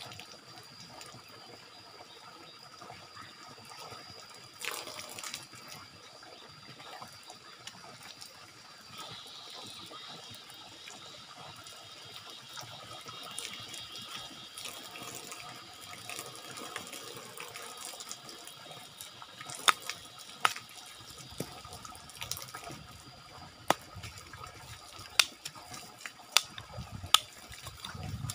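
A thin stream of water pouring from an overhead spout, splashing steadily over a bather and onto a bamboo-pole floor, with several sharp clicks in the last third.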